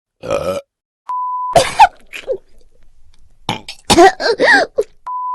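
Short human burps from different people, one after another. A steady electronic beep sounds between them about a second in and again near the end. The loudest group of burps comes about four seconds in.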